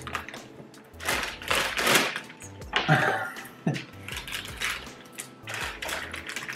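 Plastic cereal bag liner crinkling and rustling in irregular bursts as it is worked open by hand, then cut with scissors.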